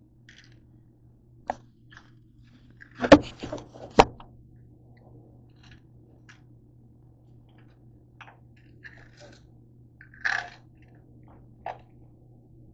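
Things handled and knocked on a hard ledge: scattered clicks and clatters, the two loudest close together about three and four seconds in, over a steady low hum.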